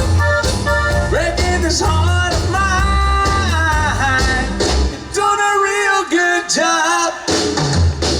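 Live band playing an instrumental passage of a country song: a lead instrument plays held and bending notes over bass and drums, and the bass drops out about five seconds in.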